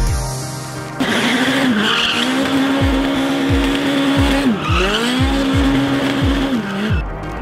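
Open-wheel race car doing donuts: its engine held at high revs while the rear tyres squeal and skid. It starts suddenly about a second in, the revs dip and climb again about halfway, and they drop off near the end.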